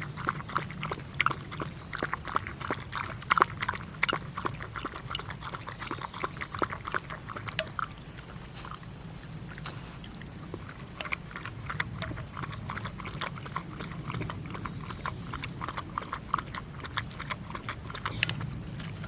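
A dog lapping water in quick wet clicks. It pauses briefly about halfway through, then laps again.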